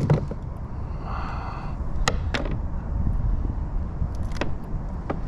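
Steady low rumble with several sharp clicks and knocks from handling a small bass, the lure and the hooks over a plastic kayak as the fish is unhooked. A faint, brief high-pitched tone comes about a second in.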